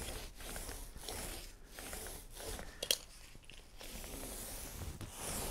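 Small foam roller rolling wet epoxy onto a plywood panel: a faint, sticky rubbing in repeated back-and-forth strokes, with one sharp click a little before the middle.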